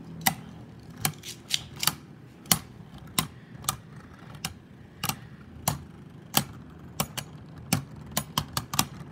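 Two Beyblade spinning tops whirring in a plastic stadium, with sharp irregular clacks as they knock together, coming faster near the end.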